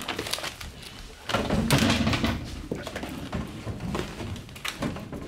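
Classroom bustle as pupils pack up: repeated knocks and thuds of bags, books and chairs, shuffling footsteps and rustling papers, with some low chatter.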